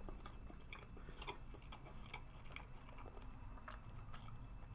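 Kakariki parrots nibbling sushi: faint, irregular small clicks and crunches of beaks working at food, a few a second.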